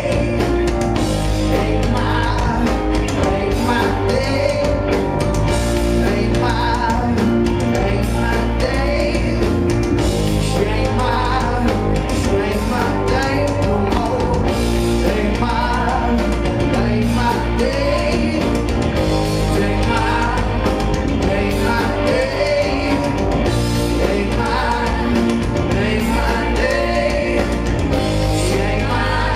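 Live rock band performing a song with a male lead vocal over electric guitars, bass and drums, loud and steady.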